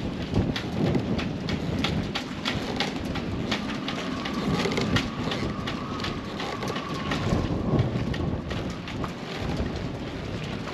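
Blustery harbour ambience: wind on the microphone and choppy water around the boats, with a rapid, irregular patter of sharp taps.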